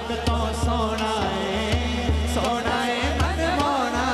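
A man sings a naat into a microphone, holding long, wavering, ornamented notes, over a steady low hand-drum beat of about two strokes a second.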